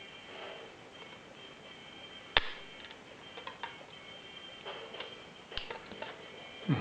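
Light clicks and ticks of a small metal chain being handled and fastened shut, with two sharper clicks about two and a half and five and a half seconds in.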